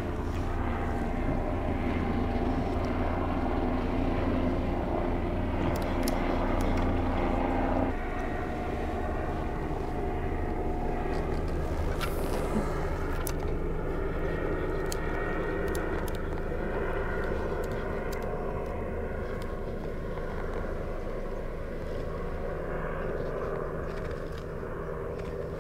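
Steady drone of a distant engine, a low hum with several overtones, whose pitch pattern shifts abruptly about a third of the way through.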